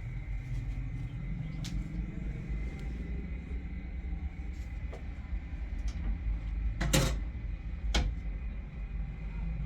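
A car running, a steady low rumble, with a few knocks and rattles; the loudest come about seven and eight seconds in.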